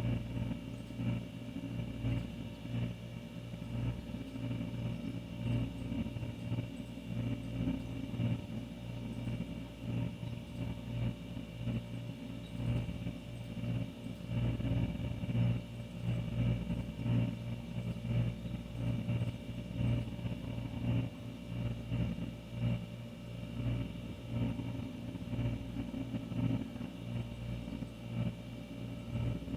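Older refrigerator running: a steady low hum with a few fainter steady tones above it.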